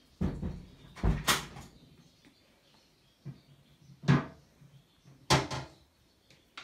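About five sharp knocks and thumps, spaced unevenly, of objects being bumped and moved about in a small storeroom.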